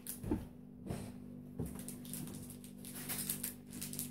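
Faint crinkling and a few small clicks of fingers working at a small plastic candy packet, over a steady low hum in the room.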